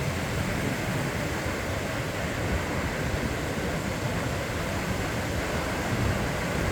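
Ocean waves breaking on a beach, a steady rushing wash of surf with no distinct single wave crashes.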